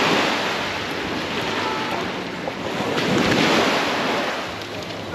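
Sea waves washing onto a sandy beach. The surf swells twice, once at the start and again about three seconds in.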